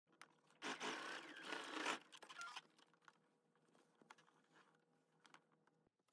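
Brief rustling and scraping of fabric being handled for about two seconds near the start, then near silence with a few faint clicks.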